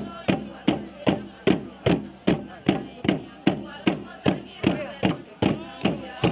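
Steady drum beat for a traditional dance: sharp strikes about two and a half times a second, each with a short falling ring.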